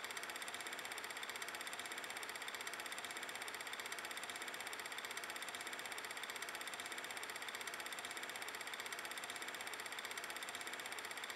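Simulated 8mm film projector sound effect added by the 8mm camera app: a steady, fast, even mechanical whirring clatter that runs unchanged.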